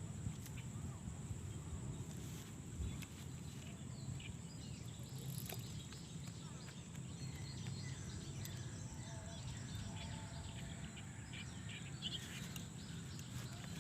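Outdoor ambience: a steady low rumble with faint, scattered bird chirps and a thin, steady high whine.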